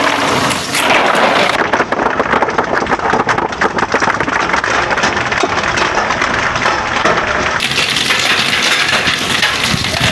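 A mass of marbles rolling and clattering down a marble-run track: a dense, steady rattle of countless small clicks.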